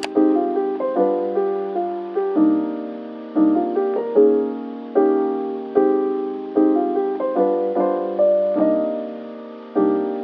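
Background piano music: soft chords struck about once a second, each note fading before the next.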